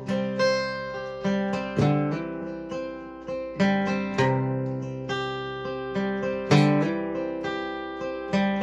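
Acoustic guitar playing a slow instrumental passage between sung lines: chords struck about once a second and left to ring and fade.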